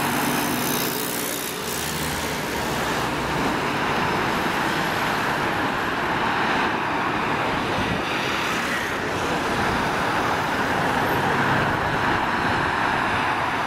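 Steady city road traffic: cars, vans and a motorbike driving past, engines and tyres running on the road.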